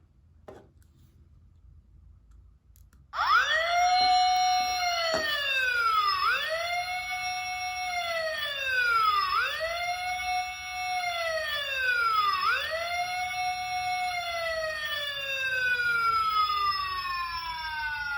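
Capsule-toy patrol siren lamp playing an electronic police-style siren through its small speaker. After a click and about three seconds of quiet, the wail starts. It rises, holds and falls about every three seconds, then near the end makes one long downward glide.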